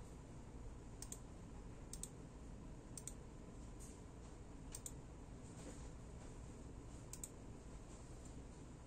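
Computer mouse buttons clicking: a handful of sharp clicks roughly a second apart, several of them quick double clicks, over a faint room hum.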